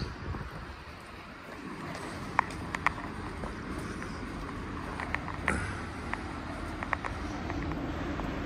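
Low, steady engine noise from idling emergency vehicles on a street, slowly growing a little louder, with a handful of sharp clicks scattered through it.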